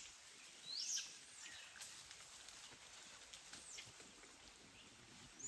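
Faint bird calls: a few short, high notes that sweep in pitch, spaced a couple of seconds apart, over quiet forest background sound.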